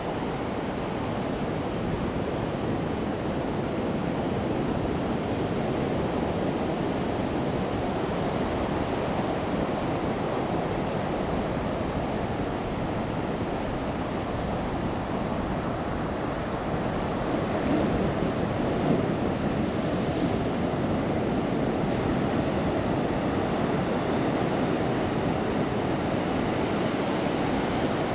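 Ocean surf breaking and washing up a sandy beach, a steady rushing wash that grows a little louder in the second half.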